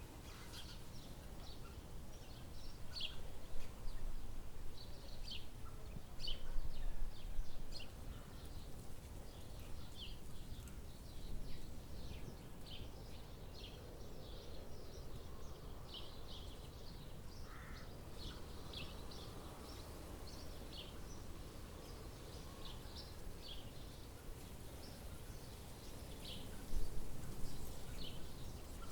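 Outdoor ambience of birds chirping: many short, high chirps scattered irregularly throughout, over a steady low background rumble.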